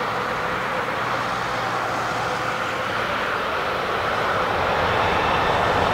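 Airbus A380-861's four Engine Alliance GP7270 turbofans at the start of the takeoff roll: a steady jet roar with a high whine, growing louder near the end.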